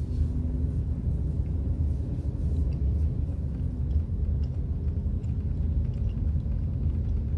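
Low steady rumble of a car driving slowly, heard from inside the cabin.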